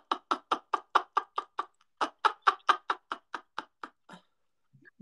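A young man laughing hard: a fast run of 'ha-ha' pulses, about five a second, with a short break for breath about two seconds in, dying away near the four-second mark.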